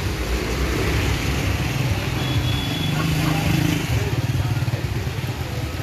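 Auto-rickshaw engine running as the three-wheeler moves past close by on a rain-wet street, over a steady hiss of rain and wet road.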